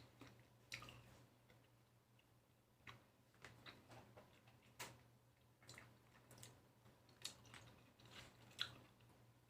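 Faint, irregular wet chewing and squishing of lychee fruit being eaten, with small clicks scattered throughout.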